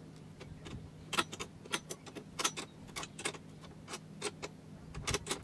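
A scatter of light, irregular clicks and taps as a lawnmower's pull cord is hooked into the cord guide on the handle tube.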